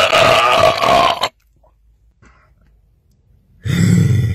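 A man's long, loud belch, its pitch falling slowly, breaking off about a second in. After a pause, a second, deeper belch starts near the end.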